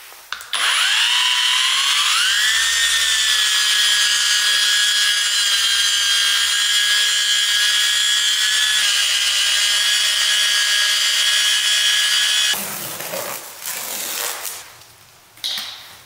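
Cordless 3-inch car polisher with a black waxing pad spinning up, its motor whine rising in pitch for about two seconds. It then runs steadily at about 3,000 RPM while working cleaner wax into the paint, and cuts off suddenly about twelve seconds in. A few rubbing and knocking handling noises follow.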